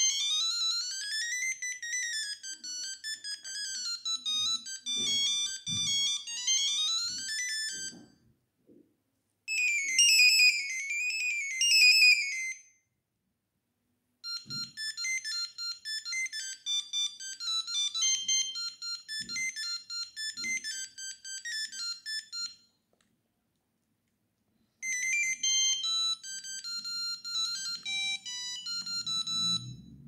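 Sony Ericsson T68i built-in ringtones previewing through the phone's small speaker: four short, high electronic melodies in turn, each breaking off after a few seconds with a brief silence before the next one starts as the next tone in the list is selected.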